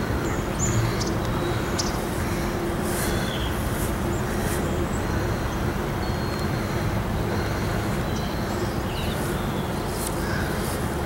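Steady rumble of distant traffic with a faint steady hum, and a few faint, short, high chirps.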